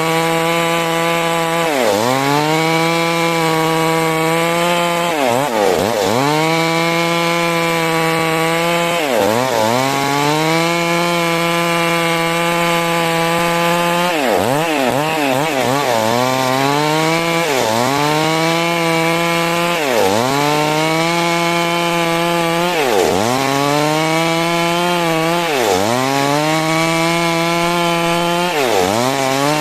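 Stihl MS 382 two-stroke chainsaw at full throttle, ripping lengthwise through a large rain tree (trembesi) log. Every two to four seconds the engine pitch drops sharply as it bogs under the cut, then climbs back up.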